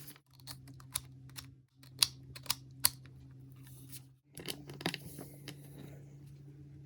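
Scattered sharp clicks and taps from handling a blow dryer and its packaging, over a low steady hum that breaks off briefly three times. The dryer is not running.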